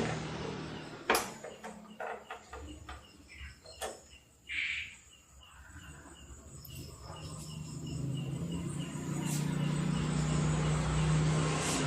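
Sharp plastic clicks and knocks as the Vespa's handlebar cover is pressed and snapped into place, the loudest about a second in. Then a steady run of short high chirps, about two a second, while a low hum swells in during the second half.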